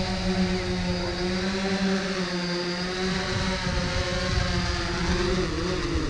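Small quadcopter drone's propellers whining steadily as it hovers on its return; near the end the pitch drops and the motors stop, as the drone lands.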